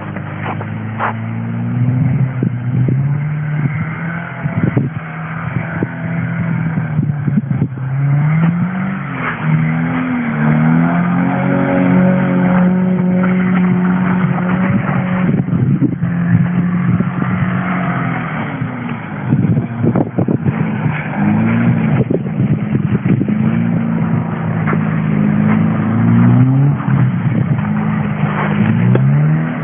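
2008 Subaru Impreza's flat-four boxer engine revving up and dropping back again and again as the car spins its wheels and slides through deep snow with its stability control switched off.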